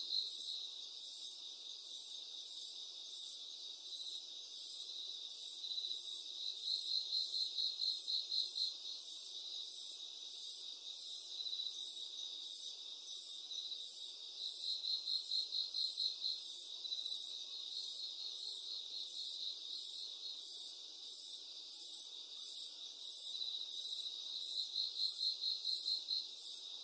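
Crickets chirping: a steady high-pitched trill, swelling every several seconds into louder runs of rapid pulsed chirps.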